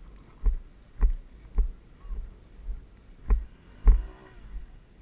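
Footsteps of someone walking through long grass, heard as regular dull thumps about two a second, jolting the camera that the walker carries.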